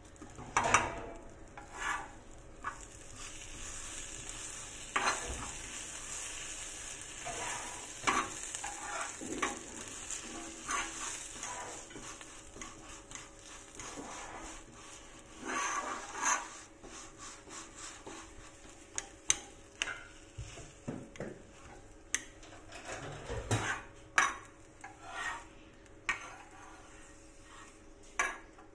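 A roti being fried into a paratha on a flat griddle (tawa), sizzling steadily for the first half before the sizzle dies down. Steel tongs scrape and tap against the griddle throughout as the bread is turned, with sharper taps in the second half.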